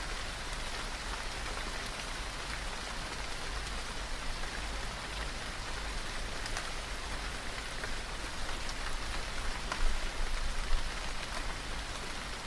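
Rain falling steadily: an even hiss with scattered sharp ticks of individual drops.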